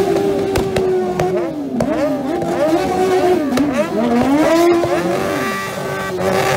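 Modified quad bike's engine with long open exhaust pipes held flat out on the rev limiter: a loud, steady high-revving note that dips and snaps back up several times.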